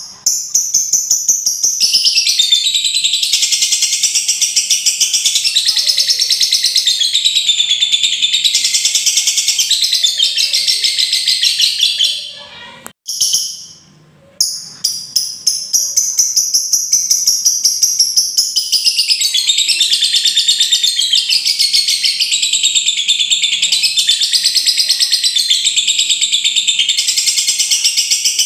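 Lovebird ngekek: a long, rapid chattering song of dense high chirps, the call keepers play to rouse other lovebirds. It breaks off about twelve seconds in, gives one short burst in the gap, then resumes a couple of seconds later.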